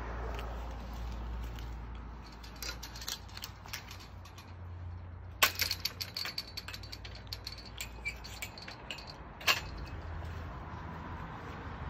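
A low steady hum with irregular sharp clicks and rattles starting a couple of seconds in, and two louder clicks about five and a half and nine and a half seconds in.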